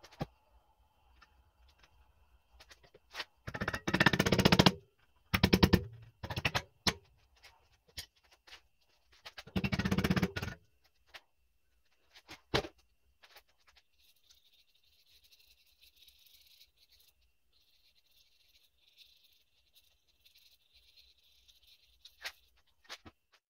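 Impact wrench hammering in four short bursts of a second or less, driving the rear brake caliper bolts, with a few single metal clicks between.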